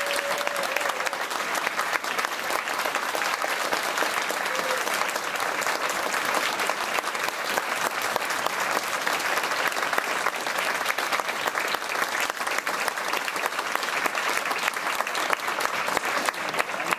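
Audience applauding steadily: a large crowd clapping.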